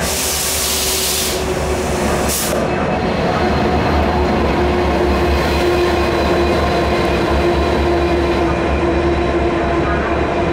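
Diesel locomotive passing slowly at close range, its engine running with a steady low hum and a held droning tone. A loud hiss fills the first second or so, and a short one comes about two seconds in.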